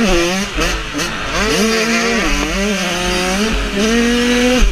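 Motocross bike engine heard from onboard, revving hard: its pitch rises and holds several times as the rider accelerates and shifts, dropping off sharply near the end. Wind buffets the microphone underneath.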